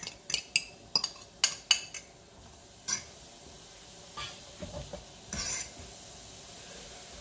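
A fork tapping and scraping on a small bowl as shredded carrots are knocked off it into a pot, a quick run of sharp clinks over the first three seconds. The fork then stirs the carrots and onions in melted butter in the pot, with soft scraping and a faint sizzle.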